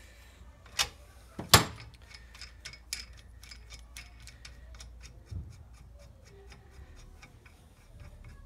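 Two sharp metal clinks, the second the louder, as the aluminium plate and washer go onto a threaded rod over a polyurethane suspension bush. Then a nut is spun down the thread by hand, giving a run of light rapid ticks, about five a second, that fade.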